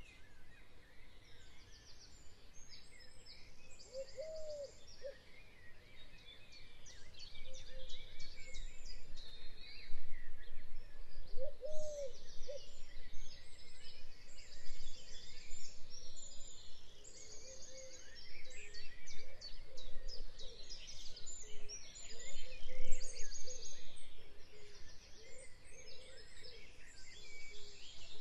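Many birds singing at once in a background ambience recording: overlapping chirps and rapid trills, with a few lower arched notes about four and twelve seconds in.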